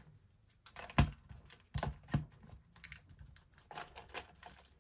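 Irregular plastic clicks and knocks of a LiPo battery pack being pushed and turned against a small RC car's plastic chassis as it is tried for fit. The sharpest knock comes about a second in, with a few more scattered clicks after it.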